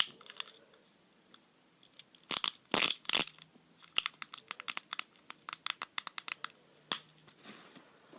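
Fidget cube being worked by hand: a run of short, sharp plastic clicks at about four or five a second, after a few louder handling noises.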